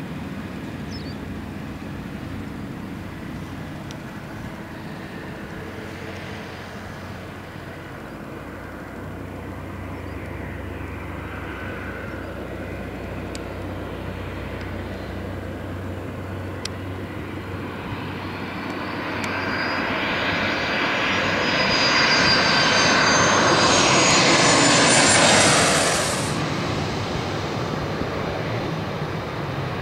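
Boeing 717's twin rear-mounted jet engines running steadily, then building to a loud roar with a rising whine about two-thirds of the way through. The roar cuts off abruptly near the end, leaving a quieter jet airliner sound.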